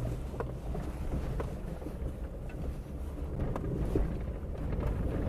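SUV driving slowly over rough unpaved ground, heard inside the cabin: a low rumble of engine and tyres with a few faint knocks from the bumps. The chassis and suspension give no rattling or clanging, the sign of a tight, well-sorted chassis.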